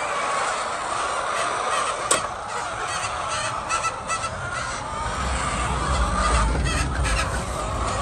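A flock of laying hens clucking and squawking continuously, many calls overlapping. A single sharp click comes about two seconds in, and a low rumble from about five to seven seconds in.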